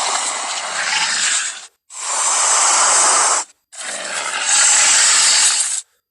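Three long, harsh dinosaur roar sound effects for a Tarbosaurus, breathy and without a clear pitch, each about a second and a half to two seconds long with short silences between.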